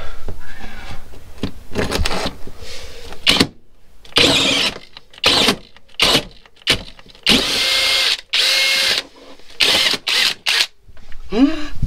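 Cordless drill with a hole saw cutting in about a dozen short bursts as the trigger is pulled and released, finishing a waste hole under a shower tray; the longest bursts, past the middle, each run for most of a second with a steady whine.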